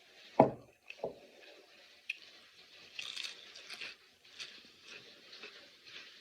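A person chewing a mouthful of cheese-topped tortilla chips, with faint scattered crunching and squishing. A sharp thump about half a second in and a smaller one about a second in.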